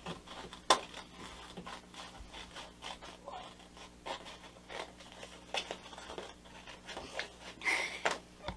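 Scissors snipping through a sheet of paper in short, irregular cuts, with the paper rustling as it is handled. There is a sharp snip about three-quarters of a second in and a few louder rustles near the end.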